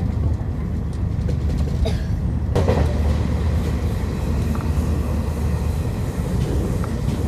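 Passenger train carriage running along the line, heard from inside: a steady low rumble with noisy hiss and a few faint clicks. It gets hissier about two and a half seconds in.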